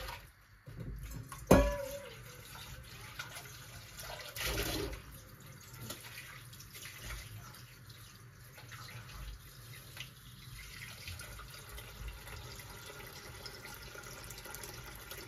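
Kitchen tap running, filling a stainless steel bowl with cold water, with a sharp ringing clank of the metal bowl about a second and a half in.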